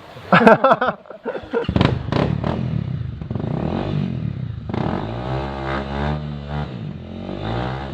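Motorcycle engine catching after a few clattering knocks, then running and revving up and down for a few seconds.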